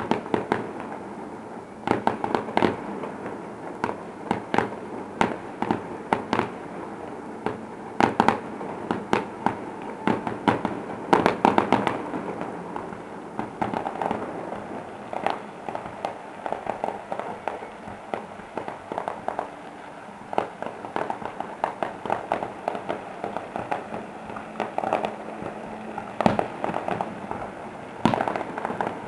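Distant aerial fireworks display: shells bursting in a rapid, irregular run of bangs and crackles, with a thinner stretch in the middle before the bangs pick up again near the end.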